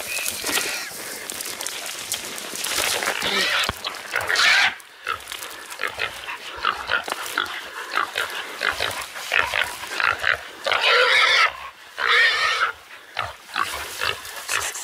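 Feral pig squealing in loud, harsh bursts about three seconds in and again twice near the end, as pig dogs catch and hold it. Between the squeals, brush rustles and snaps as someone pushes through the undergrowth.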